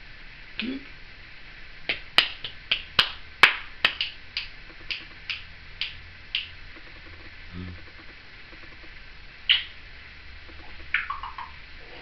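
Timneh African grey parrot making a run of sharp clicks, over a dozen in about four and a half seconds, then a single click and a short falling chirp near the end.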